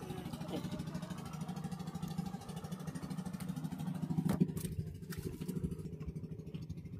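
A small engine running at a steady speed with a fast, even pulse, and a single sharp click about four seconds in.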